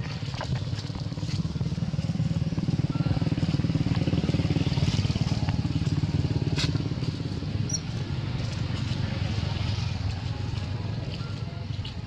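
An engine running steadily with a low drone, growing louder over the first few seconds and easing off toward the end.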